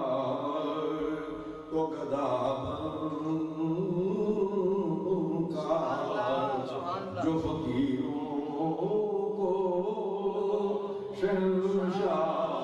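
A man's voice chanting in a slow, melodic style with long held notes that bend up and down in pitch.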